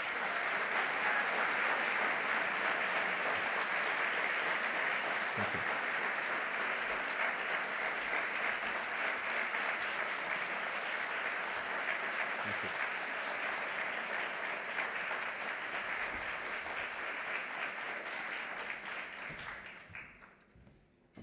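Audience applauding: steady, dense clapping that tapers off and stops near the end.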